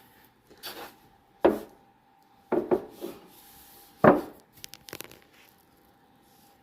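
Handling knocks and rubbing as a boxed aftermarket spoiler is moved about and turned over: about six separate sharp knocks, the loudest about four seconds in, over a faint steady hum.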